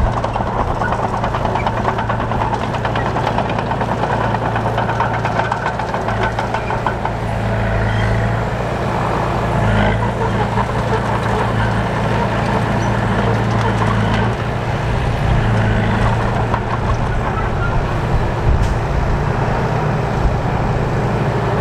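Heavy diesel earthmoving machinery running steadily: a deep engine drone with a continuous rattling clatter, the engine note shifting a little a few times.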